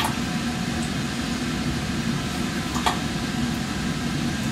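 Steady rush and low hum of laboratory ventilation running. Two light clicks of glassware and clamp being handled come at the start and about three seconds in.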